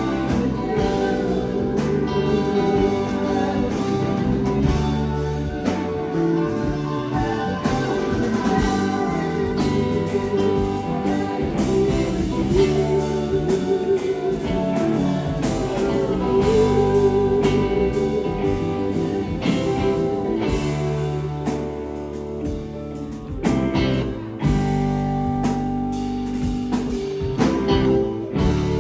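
Live band music: a guitar line playing over bass and drums.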